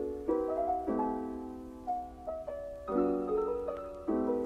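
Background piano music: slow chords struck every second or two and left to ring and fade.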